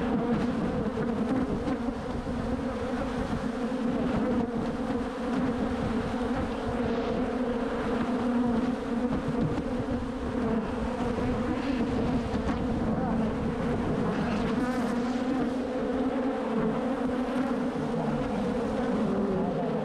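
A swarm of honeybees buzzing in a steady, dense hum, many bees flying right around the microphone above opened hive boxes.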